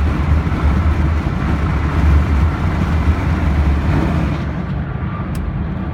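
Steady low rumble of road and engine noise heard inside the cabin of a moving car, with a hiss on top that eases after about four seconds and a brief tick near the end.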